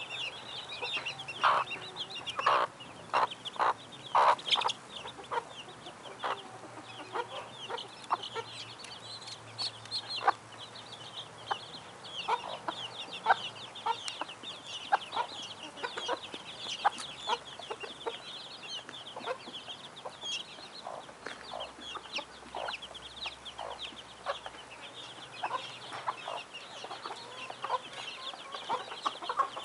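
A brood of silkie chicks peeping constantly in high, thin chirps, over a silkie hen's short clucks, which are loudest and most frequent in the first few seconds.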